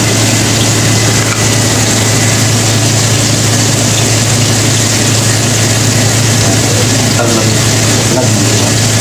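Hot oil sizzling steadily as chicken pieces deep-fry in a wok, with a steady low hum underneath.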